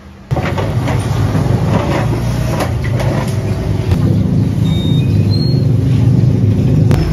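Motor traffic running close by: a loud, steady, low engine rumble that starts abruptly just after the start.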